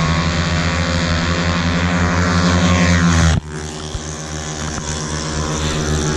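Yamaha Mio racing scooter engines running flat out in a drag race, a loud steady high-revving drone. About three seconds in it cuts abruptly to a quieter, more distant engine drone that slowly rises in pitch.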